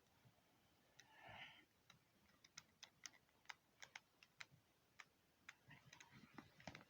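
Faint, irregular sharp clicks, a few a second, after a short breathy sound about a second in.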